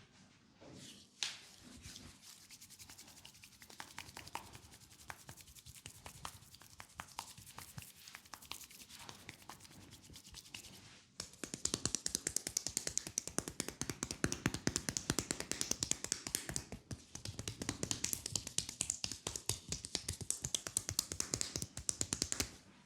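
Hands tapping rapidly on the skin of a leg in a fast percussive massage, many strokes a second. The tapping is soft at first, turns much louder about halfway through, pauses briefly, and then goes on.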